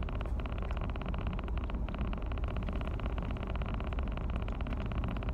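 A car's engine idling, heard from inside the cabin: a steady low running with a fast, even pulse.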